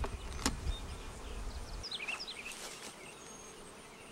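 Honey bees buzzing around a hive. A low rumble runs for the first two seconds, there is one sharp click about half a second in, and a bird chirps a few times about two seconds in.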